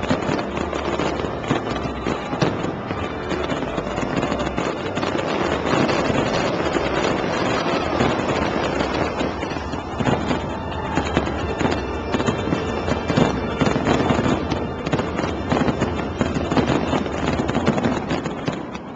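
Fireworks display going off in rapid succession, a dense run of bangs and crackles, with music playing under it.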